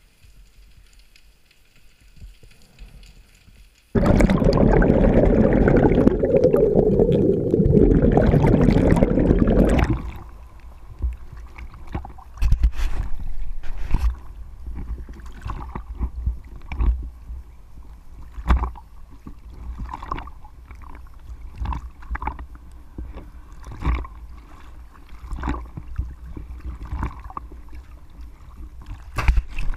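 Water against a small camera: about four seconds in, a loud rushing, gurgling wash of water and bubbles lasting some six seconds, then the camera rides at the surface with waves lapping and slapping against it in short irregular splashes.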